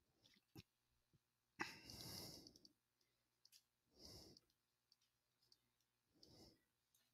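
Faint breathing picked up close on a headset microphone: three breaths about two seconds apart, the first and loudest a sigh-like exhale, with a few soft clicks between them.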